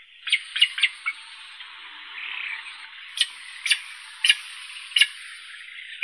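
Eurasian spoonbill (Platalea leucorodia) recording: a string of about eight short, sharp sounds over a steady hiss, three in quick succession in the first second, then one about every half second.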